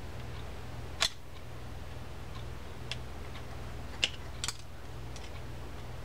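Sharp little metal clicks of a screwdriver tip working small parts into place inside an open spinning reel's gear housing: a loud one about a second in, a few lighter ones later, including a quick pair. A steady low hum runs underneath.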